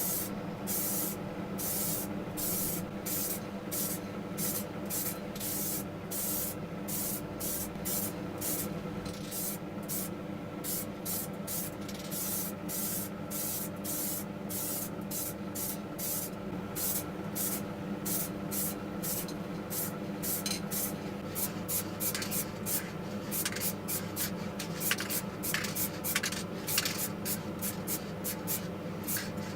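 Repeated rubbing strokes of hand sanding on a diecast model car's body over a steady hum. The strokes come quicker near the end.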